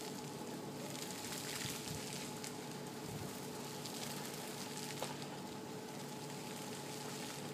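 Steady fine hiss of freezing rain falling on icy ground, with a few faint ticks. A faint steady hum sits underneath.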